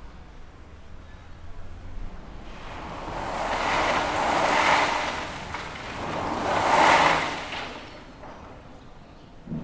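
Rubble and debris being cleared out of an old building, sliding and pouring in two long swells of rattling noise, the second and louder one about seven seconds in, fading away before another begins at the very end.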